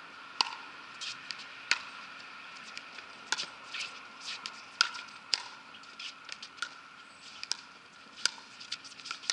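Pickleball paddles striking a hard plastic pickleball in a rally: sharp hollow pops at irregular intervals, the loudest roughly once a second, with fainter clicks between.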